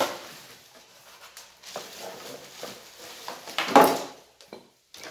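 Polystyrene foam packing and a clear plastic bag rustling, creaking and scraping as a portable oil compressor is lifted out of its packaging. The loudest scrape comes a little under four seconds in.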